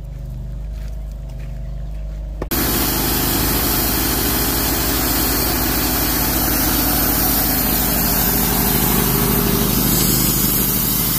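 Wood-Mizer LT15 Wide portable band sawmill: its engine running. About two and a half seconds in it turns suddenly much louder as the engine works under load and the band blade saws through a log, a loud steady rasp over the engine's drone.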